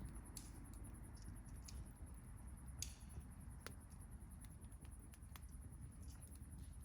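Wood campfire burning quietly: scattered crackles and sharp pops from the burning wood, the loudest pops about three seconds in, over a low steady rumble of the flames.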